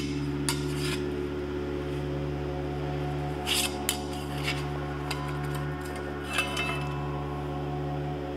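Thin sheet-steel spatula blanks clinking and scraping against each other and the bench as they are handled: a handful of separate light metallic clinks, over steady background music.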